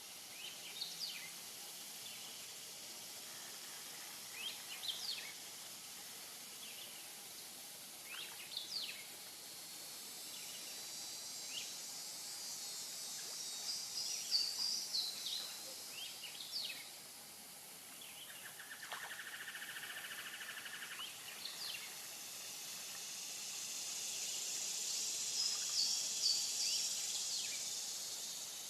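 Swamp wildlife chorus: birds giving short, high chirping calls every few seconds over a high insect drone that swells twice, with a brief rapid trill a little past the middle.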